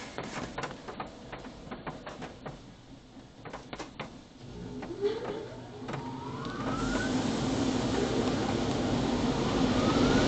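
Touchless car wash bay: scattered drips and clicks, then about five seconds in the dryer blowers spin up with a whine rising in pitch into a steady, growing rush of air. A second rising whine comes near the end.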